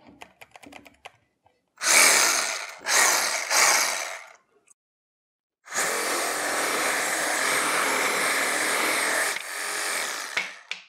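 Light clicks as a pruning blade is fitted into the clamp of a Milwaukee Hackzall reciprocating saw. Then the saw runs with the pruning blade cutting a tree branch: two short bursts about two seconds in, then a steady cut of about four seconds that tapers off near the end.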